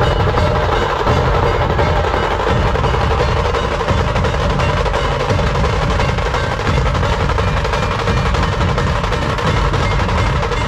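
Dhol-tasha pathak playing: massed dhol barrel drums and tasha drums beating a loud, dense, continuous rhythm.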